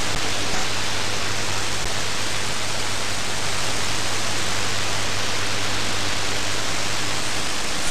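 Steady shortwave static from a FlexRadio FLEX-3000 software-defined receiver tuned around 13.9 MHz, with no station coming through, only band noise. A faint low hum sits under the hiss.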